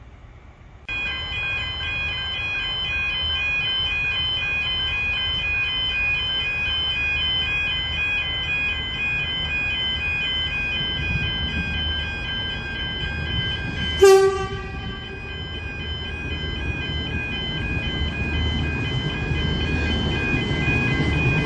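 Level crossing warning alarm starts suddenly about a second in and sounds steadily as a repeating pattern of alternating tones. About two-thirds of the way through, a V/Line VLocity diesel train gives a short horn toot, and near the end the train's low rumble builds as it approaches.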